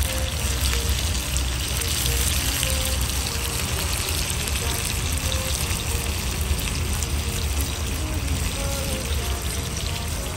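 Beef gola kababs and sliced onions sizzling on a preheated cast-iron sizzler plate: a steady crackling hiss.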